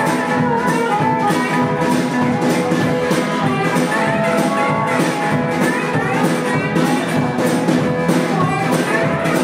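Live blues band playing an instrumental passage: harmonica wailing over electric guitar, upright double bass and a drum kit keeping a steady beat.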